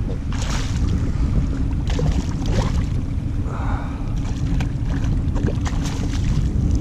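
Wind buffeting the microphone over choppy water lapping at a kayak, with a few sharp water splashes as a speckled trout thrashes at the surface near the boat.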